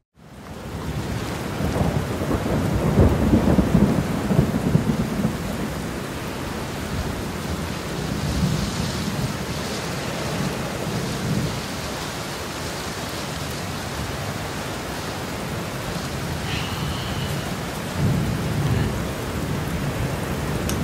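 Thunderstorm: steady rain with low rolls of thunder, swelling a couple of seconds in and again near the end.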